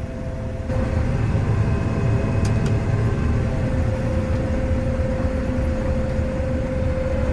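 Combine harvester running, heard from inside the cab: a steady deep engine drone with a constant whine, getting louder a little under a second in.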